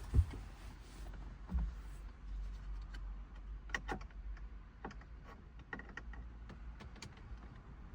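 Scattered small clicks, ticks and a couple of knocks from working a Phillips screwdriver on the plastic dash trim screws, over a low steady rumble.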